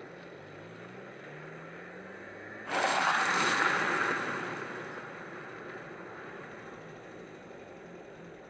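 Sound effects from an anime episode's soundtrack: a low hum with slowly rising tones, then a sudden loud rushing burst a little under three seconds in that fades away over about two seconds.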